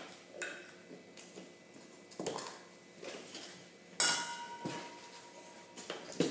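Stainless steel bottle knocking and clinking as it is handled: several separate knocks, the loudest about four seconds in, ringing on briefly.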